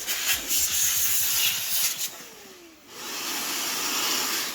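Two bursts of rushing air hiss, the second steadier than the first, with a faint falling whine after each as it dies away.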